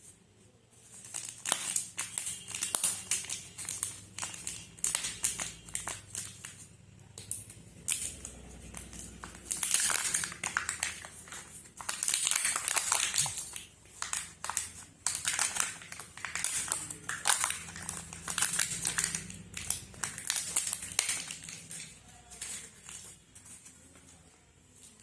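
Wrappers of chocolate surprise eggs being crinkled and torn open by hand, in irregular spurts of crackling with short pauses.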